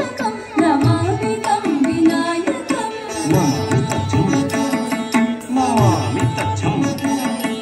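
Carnatic-style Indian classical dance music with regular hand-drum strokes under gliding melodic lines.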